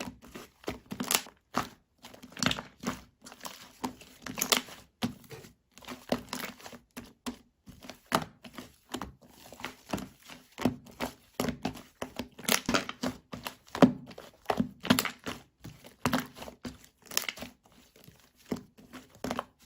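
Slime being squeezed and pressed by hand, making irregular crackling and popping squishes, several a second, with short pauses between handfuls.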